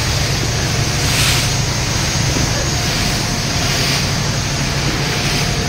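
Steady drone of a passenger ferry's engine, with wind rushing over the microphone and water noise along the hull.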